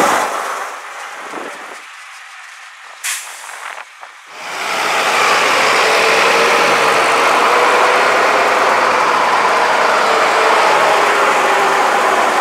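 Diesel engine of a Bristol VR double-decker bus running as it pulls away, fading out within the first second or two. After a quieter stretch with a brief sharp sound about three seconds in, a second Bristol VR double-decker's diesel engine runs loud and steady as the bus drives close past.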